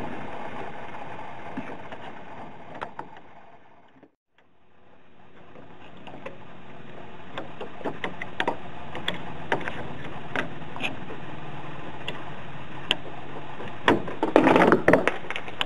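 Scattered light clicks and taps of fingers working the plastic retaining clip on a transmission cooling line fitting at the radiator, ending in a quick cluster of louder clicking and rattling. A steady hum runs underneath, and the sound drops out briefly about four seconds in.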